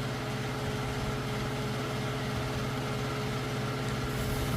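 A steady mechanical hum with a constant low drone, like a motor or fan running continuously.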